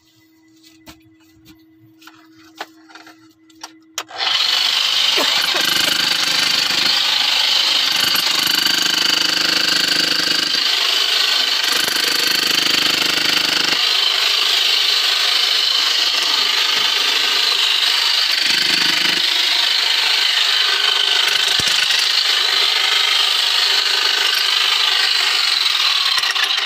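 A few light knocks, then about four seconds in a power tool starts abruptly and runs loud and steady to the end, a dense high-pitched noise with a low rumble that comes and goes.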